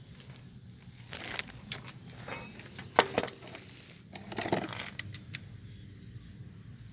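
Metal tie rod parts being handled, clinking and rattling against each other in several short bursts, with one sharp clink about three seconds in.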